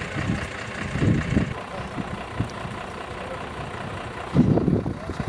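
A vehicle engine idling under steady roadside noise, with two short louder low rumbles, about a second in and again near the end.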